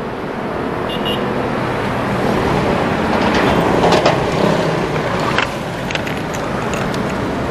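Steady road and traffic noise around a scooter in city traffic, then a few sharp clicks from about four seconds in as a key works the lock and latch of a plastic motorcycle top box.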